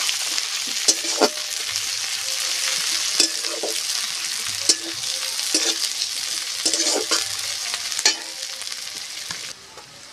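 Sliced onions and green chilies frying in mustard oil in a metal kadai, sizzling steadily, with a metal spatula scraping and clinking against the pan as they are stirred. Near the end the sizzle suddenly drops quieter.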